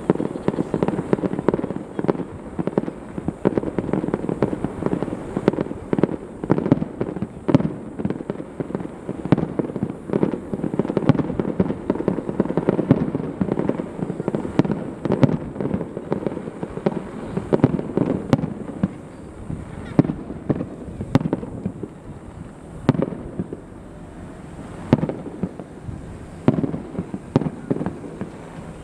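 Aerial fireworks bursting in quick succession, a dense barrage of bangs and crackles over a continuous rumble. The barrage thins out about two-thirds of the way through, leaving scattered single bangs.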